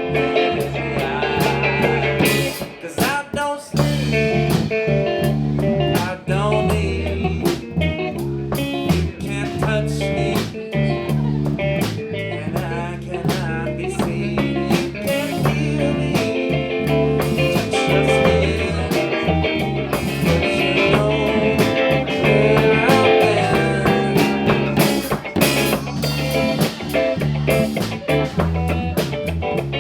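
Live band playing blues-rock: guitar over bass and drum kit, with steady drum hits and a brief drop in level about three seconds in.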